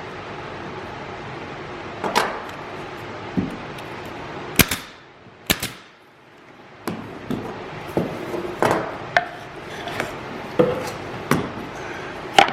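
Woodworking knocks: a hand tool striking wooden boat parts, about fifteen irregular sharp knocks, sparse at first and then coming closer together in the second half, some with a short ringing tone. A steady background hiss stops about five seconds in.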